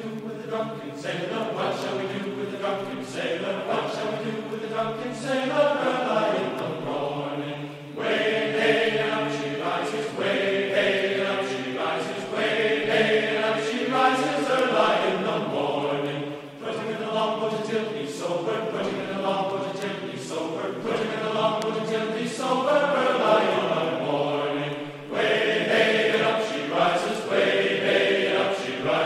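Background music of wordless, choir-like singing in sustained chords that shift every second or two.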